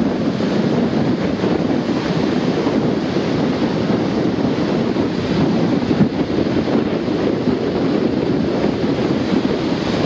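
Storm waves breaking and washing up a beach in a loud, continuous rush of surf, with wind buffeting the microphone.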